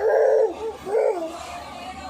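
A small child's voice: two short, high-pitched laughs, the first right at the start and the second about a second in.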